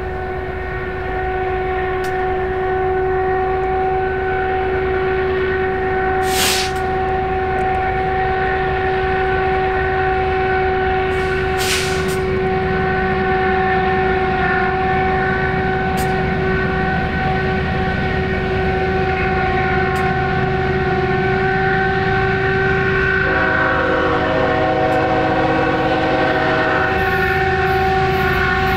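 Diesel locomotives of a BNSF freight train approaching and passing, growing slowly louder, with a steady high whine held throughout. A horn chord sounds for a few seconds about 23 seconds in.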